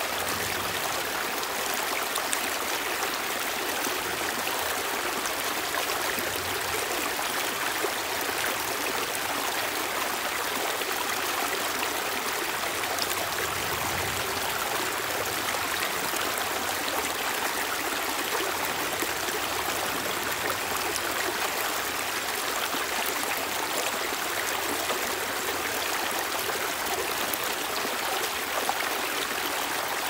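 Shallow rocky stream babbling and splashing over small stones and ledges, a steady rush of running water.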